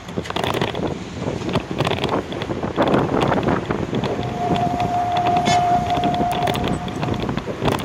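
Wind buffeting the microphone over street traffic noise during a bicycle ride through city streets. About four seconds in, a single steady tone sounds for about three seconds.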